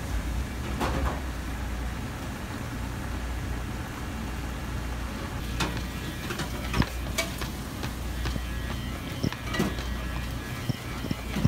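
Wooden chopsticks knocking and scraping against a stainless-steel frying pan as spaghetti in cream sauce is stirred and tossed, with scattered sharp clicks mostly from about halfway on. Under it runs a steady low rumble.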